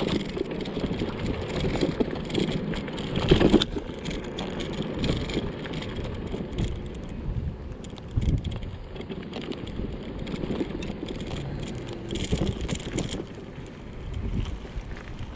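Electric scooter rolling over a rough concrete pier: a steady low rumble with rattling and clicking, and wind on the microphone. A louder jolt comes about three and a half seconds in.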